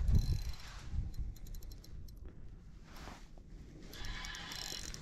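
Spinning reel being cranked while fighting a hooked fish, giving two short runs of fast mechanical clicking, about a second and a half in and again near the end, over a low rumble.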